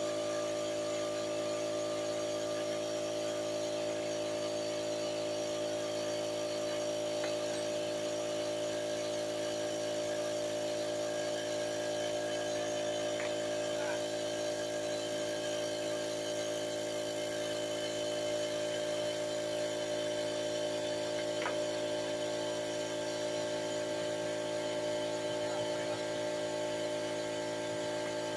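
Steady machine hum made of several fixed tones that hold unchanged throughout, with a couple of faint light clicks.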